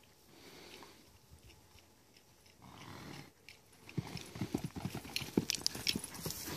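Hoofbeats of a horse cantering close by on grassy ground: a quick, irregular run of thuds starting about four seconds in.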